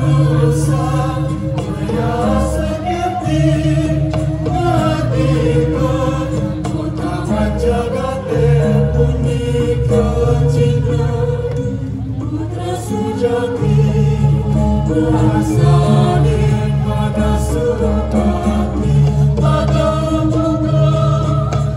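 Balinese sandhya gita: a choir singing in chorus, accompanied by a gong kebyar gamelan, with held low tones under the voices.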